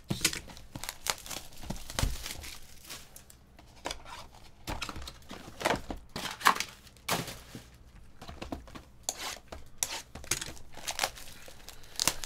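Plastic shrink wrap being torn and crumpled off a sealed trading card box by hand, a run of irregular crinkles and rips.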